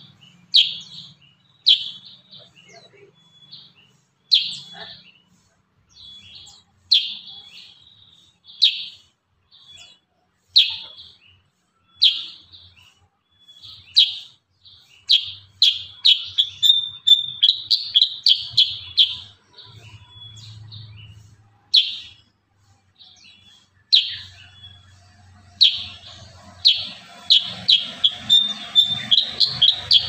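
Caged kurincang bulbul singing sharp, loud whistled notes. At first they come singly every second or so, then as fast rapid-fire runs in the middle and again near the end: the dense 'tembakan rapat' burst song.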